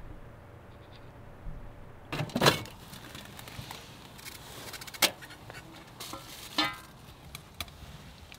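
Aluminium mess tin and its lid clattering as they are handled, loudest about two seconds in, followed by three sharp metallic clicks and knocks, one of them ringing briefly.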